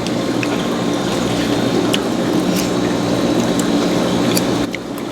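Wet chewing and eating sounds of cheesy scallops, with a few sharp clicks, over a steady low hum.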